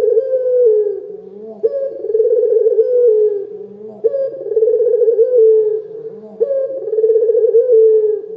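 Barbary dove (Indonesian puter lokal) cooing loudly over and over. Each phrase is a short low note running into a long, rolling coo, and a new one comes about every two and a half seconds.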